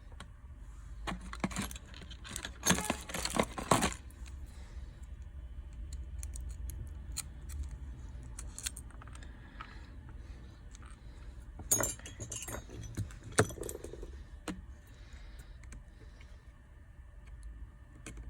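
Small metal clicks and clinks from handling the iPhone's SIM tray and repair tools, in two flurries, the first about a second in and the second around twelve seconds in, with a few scattered ticks between them. A low steady hum sits underneath.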